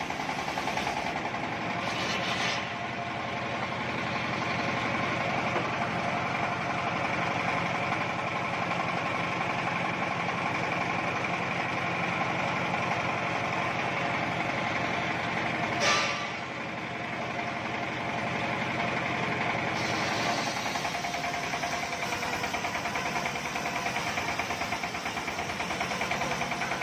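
Home-built belt-driven circular sawmill running steadily while its blade rips a teak log lengthwise. A brief sharp noise comes about two seconds in, and a louder one about sixteen seconds in.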